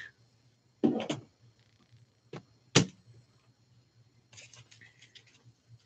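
Hard plastic card holders being handled on a table: a faint tap, then a sharp knock about three seconds in, then a run of light plastic clicks near the end.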